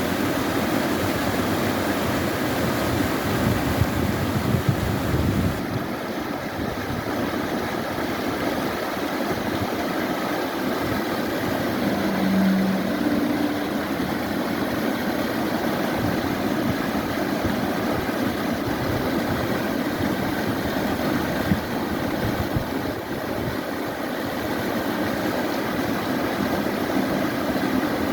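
Mountain valley stream flowing, a steady rushing of water.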